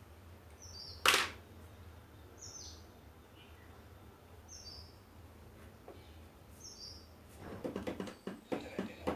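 A bird gives a short, high, falling chirp about every two seconds. There is one sharp knock about a second in, and a quick run of knocks and clatter near the end, over a steady low hum.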